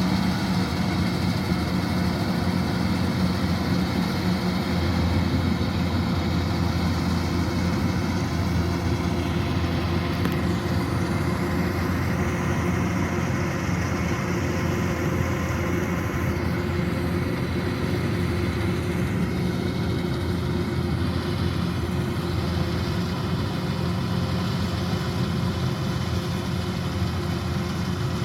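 Kubota DC-105X combine harvester running steadily, its engine giving a low, even hum with machinery noise above it.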